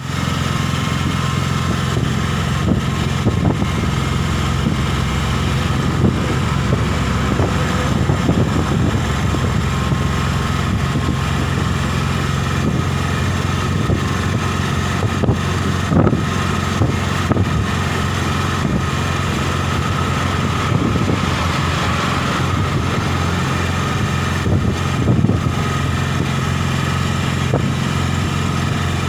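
Autorickshaw's single-cylinder engine running steadily under way, a constant low drone, with scattered short knocks and rattles here and there.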